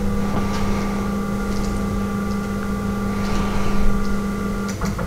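PROBOTIX Asteroid CNC router's stepper motors driving the gantry axes while the machine homes. The whine is steady and cuts off near the end, followed by a few sharp clicks.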